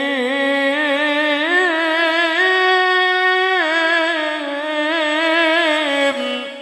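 A man's voice reciting the Quran in melodic tilawah style, holding one long ornamented phrase whose pitch rises, sways and falls, before it stops about six seconds in and leaves a short fading echo.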